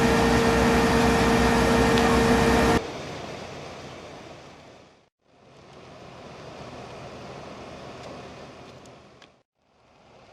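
Machinery running with a steady whine over a rumble, cut off abruptly about three seconds in. A much quieter noise follows that fades out, comes back and fades out again.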